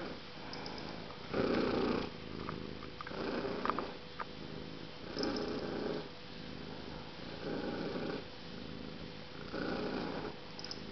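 Orange domestic cat purring close up, the purr swelling louder about every two seconds with each breath.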